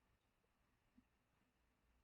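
Near silence: faint recording hiss, with one very faint tick about a second in.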